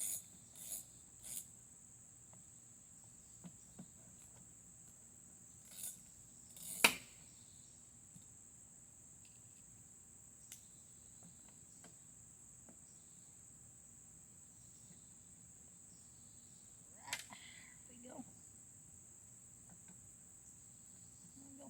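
Steady high-pitched insect chirring, with scattered clicks and metal clinks from parts being taken off a Briggs & Stratton overhead-valve mower engine; one sharp clank about seven seconds in is the loudest.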